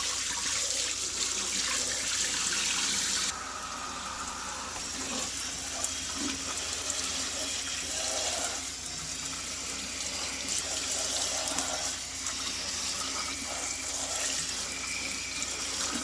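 Tap water running steadily into a sink, rinsing ultrasonic cleaning solution off a motorcycle wiring harness. The hiss of the water drops suddenly about three seconds in, then runs on.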